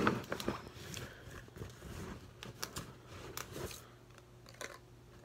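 Plastic tackle boxes being handled and rummaged through: scattered clicks, knocks and rattles, the loudest right at the start.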